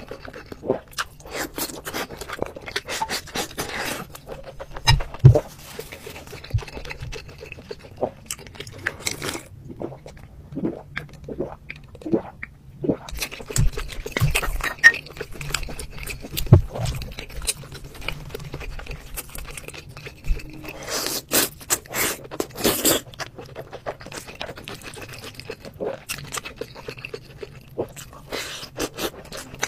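Close-miked eating sounds: spoons scraping and knocking on ceramic bowls as fried tomato and egg is ladled onto rice and mixed in, with chewing in between. A dense run of scraping comes about two thirds of the way through.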